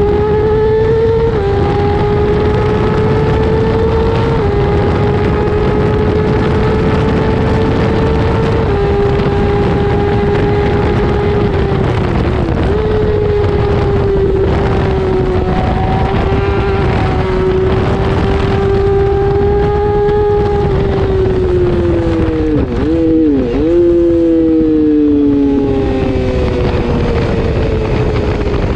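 600cc racing motorcycle engine at high revs on an onboard recording, the pitch climbing and stepping down with each of several upshifts, then holding steady at speed, over a constant rush of wind. Over the last third the pitch sinks as the bike brakes and slows, with a couple of quick downshifts.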